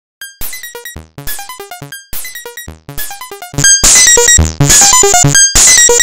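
Synthcussion SC-1 software percussion synth playing a looping run of short electronic hits that step down in pitch, repeating about once a second. A little over halfway through it jumps much louder and turns harsh and gritty as the Carbonizator distortion plug-in is brought in.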